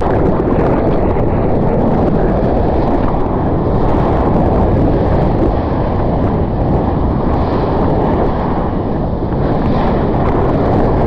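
Steady, loud rush of wind buffeting an action camera's microphone, with water noise mixed in.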